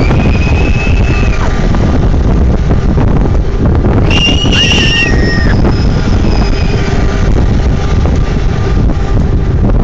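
Steady heavy wind buffeting the phone's microphone as the carnival ride swings through the air, with girls' high-pitched screams: one held scream at the start and another, with two voices at once, about four seconds in.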